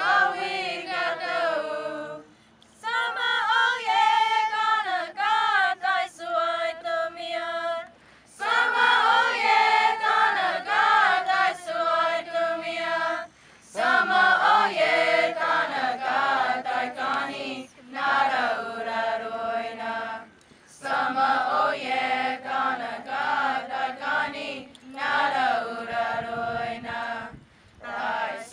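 Youth choir singing a Comanche hymn unaccompanied, many voices together, in sung phrases of held notes with brief pauses for breath between them.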